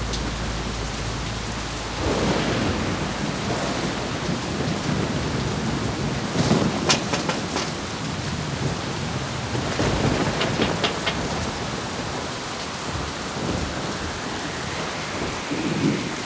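Heavy rain falling steadily, with low rumbles of thunder swelling up a few times.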